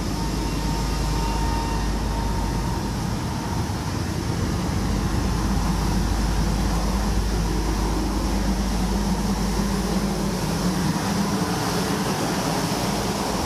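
Steady drone of an oil tanker's machinery, a few low humming tones over a constant rushing noise.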